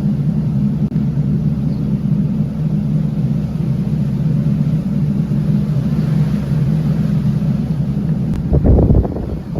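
Boat engine running steadily with a low drone. Near the end it gives a brief louder rumble, then drops away to a rougher wash of noise.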